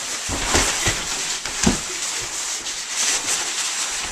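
Scuffling and rustling close to the microphone, with several dull thumps in the first two seconds, as a child in a poncho tumbles about.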